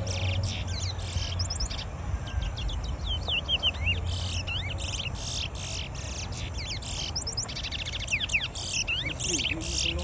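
Small caged songbirds singing: rapid runs of high chirps and quick gliding whistled notes, one run after another, over a steady low rumble.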